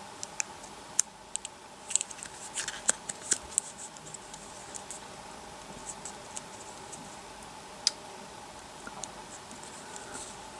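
Small sharp clicks and scratches of fingers handling the opened iPhone 4's internals while working its battery connector back into place. There is a quick run of clicks in the first few seconds, then scattered single clicks, one of them sharp, a little before the end.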